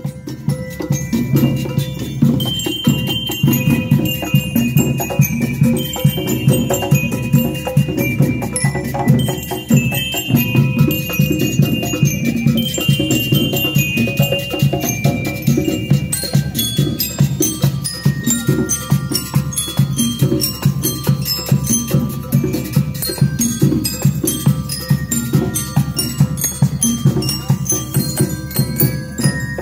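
School rhythmic band playing: snare and bass drums keep a dense, steady beat while metal bell lyres carry the tune in bright, high notes that step up and down.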